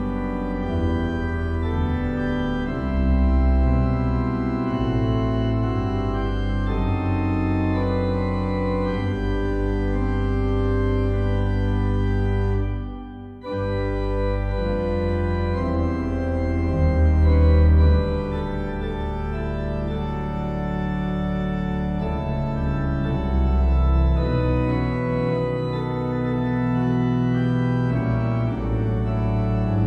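Organ playing a hymn in sustained chords, harmonized over a bass line that steps downward. The sound breaks off briefly about halfway through at the end of a phrase, then the chords resume.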